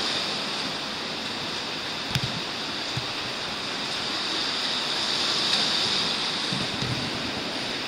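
Steady rushing noise of running water, with two faint knocks about two and three seconds in.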